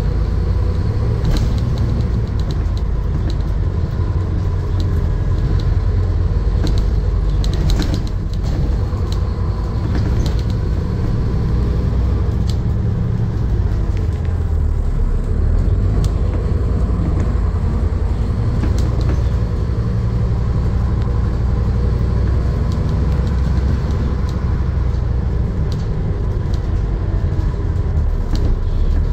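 Scania N230UD double-decker bus running along in town traffic, heard from inside the passenger saloon: its five-cylinder diesel engine gives a steady low rumble, with short rattles and clicks from the bodywork now and then.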